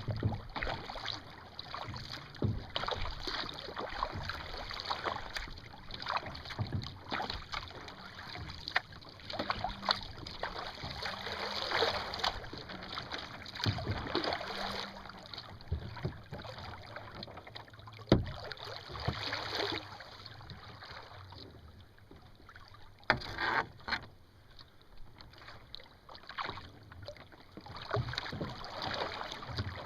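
Water swishing and splashing around a sailing kayak's hull as it moves along, in uneven surges, with light wind on the microphone and a sharp knock about eighteen seconds in.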